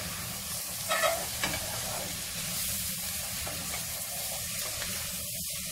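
Squash pieces sizzling in hot oil in a stainless steel saucepan while being stirred with a ladle, with a few clicks of the ladle against the pot about a second in.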